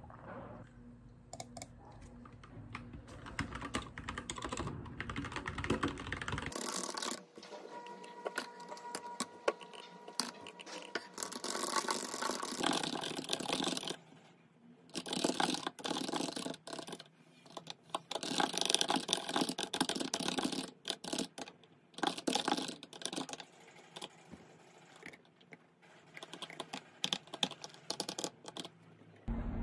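Typing on a computer keyboard: rapid runs of key clicks in bursts, with brief pauses between them.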